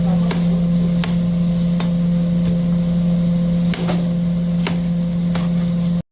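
Steady low hum of a running kitchen appliance, with light ticks roughly every three-quarters of a second; the sound cuts out abruptly right at the end.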